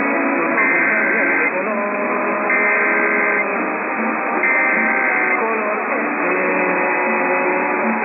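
Emergency Alert System SAME header: three bursts of digital data tones, each just under a second long and about a second apart, received over AM radio. A noisy, muffled background with music and voices runs underneath.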